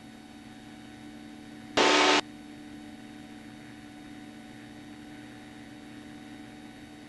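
A Cessna 172's engine and propeller drone steadily, heard through the cockpit headset intercom. About two seconds in, a brief, loud burst of radio static cuts in and stops after less than half a second.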